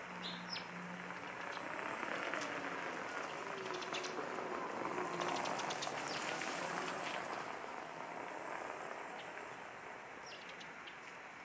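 An electric unicycle rolling along brick paving: the hiss of its tyre swells as it comes closer, is loudest as it passes about five to six seconds in, then fades as it rides away.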